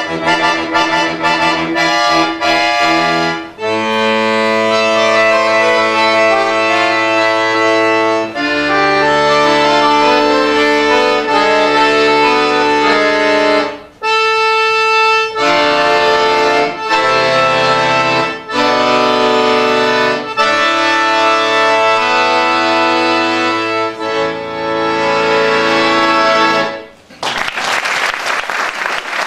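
Piano accordion playing the closing section of a fast rock-style toccata: rapidly repeated chords, then loud sustained chords. It ends on a final chord about 27 seconds in, and audience applause follows.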